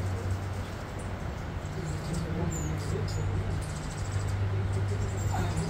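Hummingbird wings humming steadily as it hovers at a hand-held feeder, with a few short, high squeaky chirps.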